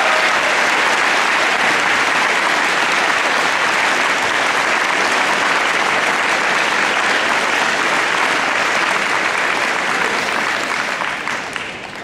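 Large audience applauding steadily, dying away near the end.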